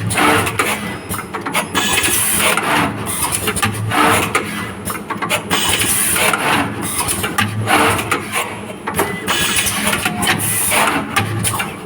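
Automatic wire cutting, stripping and soldering machine running, its mechanisms clicking and whirring through a working cycle that repeats every few seconds.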